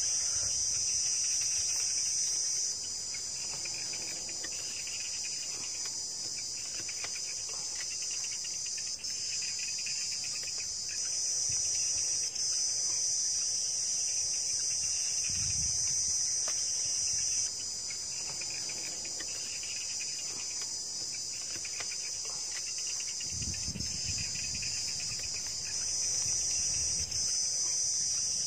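Dense, steady high-pitched insect chorus with a second, pulsing insect call lower down. The chorus steps louder and quieter several times.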